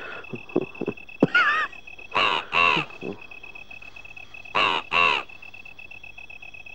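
A bird giving harsh, caw-like calls: a short warbling call about a second in, then two pairs of calls, each call about a third of a second long.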